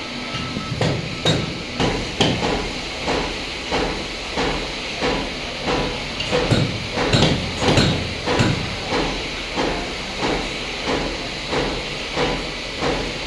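Needle-type tasma dori cord machines running. They make a steady, even clacking of about one and a half knocks a second over a continuous mechanical hiss.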